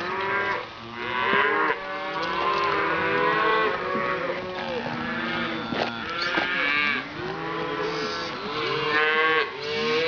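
Many cattle mooing and bawling at once, their calls overlapping at several different pitches with hardly a pause.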